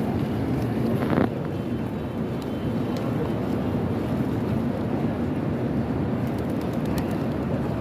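Steady low rumble of outdoor ambient noise, with a brief louder sound about a second in and a few faint clicks.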